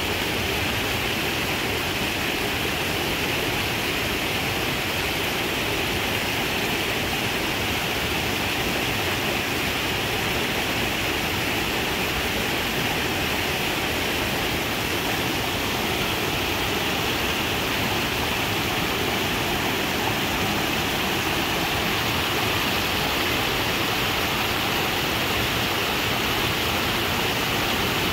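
Small waterfall pouring into a rocky pool, a steady rushing of falling water.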